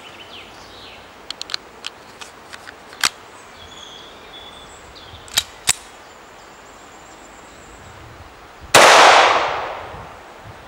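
9 mm blank-firing pistol being fired: a few light clicks and sharp snaps of handling, then one very loud report about nine seconds in that rings out and fades over a second and a half.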